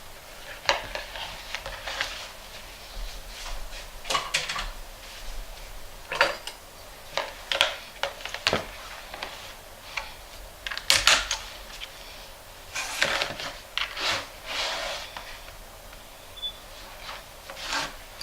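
Kitchen utensils and dishes being handled: irregular clinks, knocks and clatters, with the loudest clatters about eleven seconds in.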